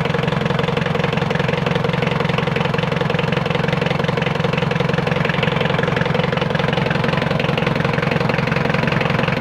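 Mitsubishi 4D56 four-cylinder diesel engine idling steadily with a fast, even clatter. It is running after its injection timing was advanced one gear tooth, which cured a hard start that the mechanic puts down to low compression.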